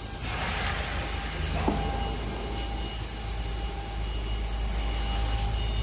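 CNC bridge cutting machine running steadily with a low hum and faint steady tones. A hiss swells just after the start, and there is a single knock about a second and a half in.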